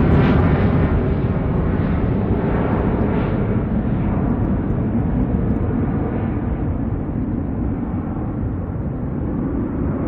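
Jet engines of a twin-engine airliner climbing out after takeoff: a deep, steady roar that slowly fades and dulls as the aircraft pulls away.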